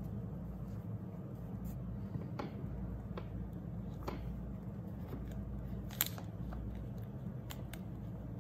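Paper being peeled and pressed onto a notebook page by hand: soft paper rustles and scattered small clicks and crinkles, one sharper click about six seconds in. A steady low hum runs underneath.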